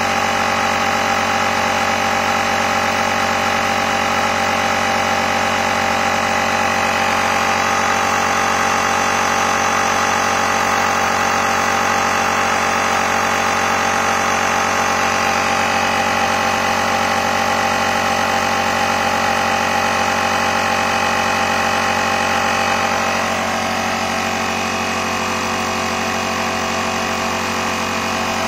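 Air compressor built into a Motomaster Eliminator 1400 booster pack running steadily, pumping air into a car tyre through its hose. Its level eases off slightly about three-quarters of the way through.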